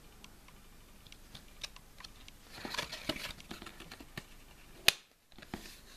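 Handling noise from a cardboard CD digipak and its disc: soft rustling and small plastic clicks as fingers press on the disc's hub, with one sharp click about five seconds in.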